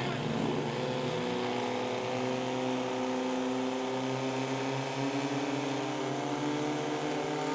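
Portable fire pump engines running steadily at high revs under load, pumping water through the hoses to the spray nozzles. The pitch drifts slightly up and down.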